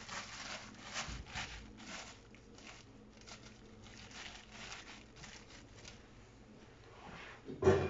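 Cloth towel and plastic bag rustling and crinkling as hands tuck them around the rim of a steamer pot, in short soft strokes that thin out after about six seconds. A louder knock comes at the very end.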